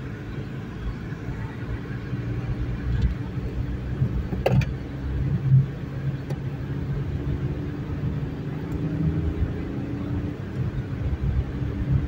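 Car driving at road speed, heard from inside the cabin: a steady low rumble of engine and tyres, with a short sharp click about four and a half seconds in.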